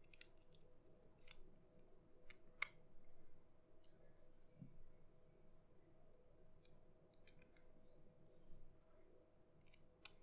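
Faint, irregular small clicks and ticks of a small screwdriver and tiny screws being worked into a phone's frame, the sharpest about two and a half seconds in.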